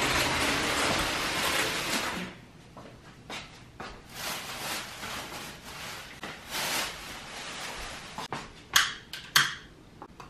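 Household handling noises: a rustling hiss for about the first two seconds, then faint shuffling and objects being moved about on a table, with two sharp clicks near the end.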